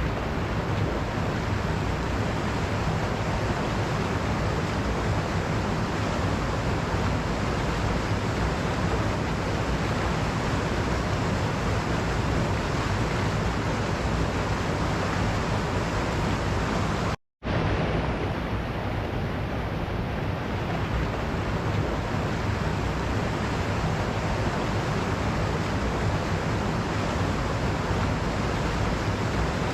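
Waterfall water rushing in a steady, even roar of noise, cutting out to silence for a split second a little past halfway through.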